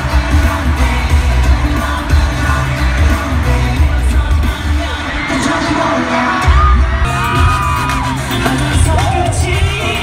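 Loud K-pop music with singing over a heavy, pulsing bass beat. The bass drops out briefly about six seconds in.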